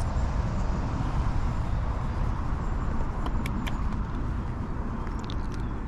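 Wind buffeting the microphone outdoors: a steady low rumble with no pitch, with a few brief faint high clicks or chirps about three seconds in and again near the end.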